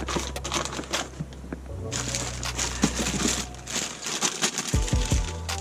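Crinkling and rustling with small clicks as swerve-module parts are handled and packed into kits. Background music with a steady beat comes in near the end.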